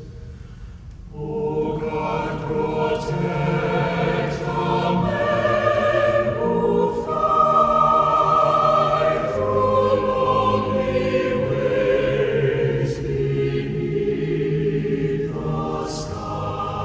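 Choral music: a choir singing slow, held notes, coming in about a second in after a short lull.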